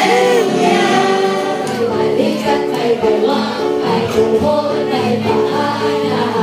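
Christian worship song sung by a group of voices over instrumental accompaniment, with a steady run of repeated notes coming in about two seconds in.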